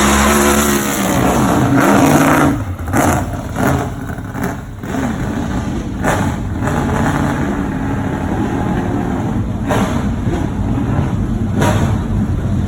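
A racing car's engine accelerating hard and revving up, loudest about two seconds in, followed by a run of sharp drops and bursts and then steadier engine noise as the car carries on up the hill course.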